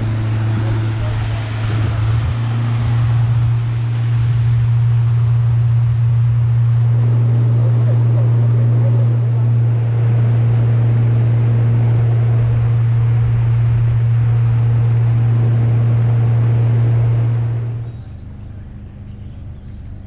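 Boat engine running steadily at speed with wind and water rushing past. Near the end the engine note stops suddenly, leaving a much quieter low rumble.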